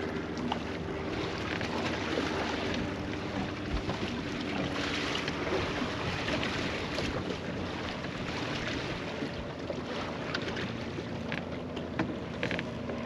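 Wind on the microphone and water lapping against a boat on the lake, as a steady rushing noise with a faint low hum and a few small knocks.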